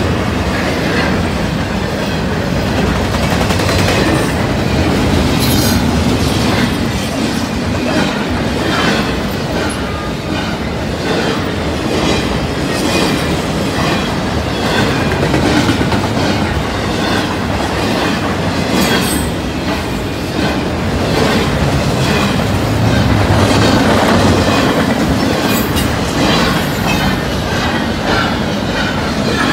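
Norfolk Southern double-stack intermodal freight train rolling past: a loud, continuous rumble of container cars on the rails, with repeated clacks of the wheels over rail joints.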